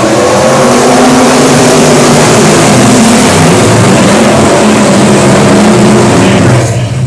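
Pack of dirt-track modified race cars at full throttle just after the race start, their V8 engines blending into one loud, steady drone. The high hiss thins out near the end as the field moves away.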